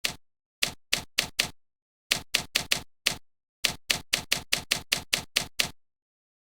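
About twenty sharp clicks in irregular runs, in the rhythm of typing keystrokes, with dead silence between them. The longest run is an even patter of about five clicks a second, starting in the middle and stopping near the end.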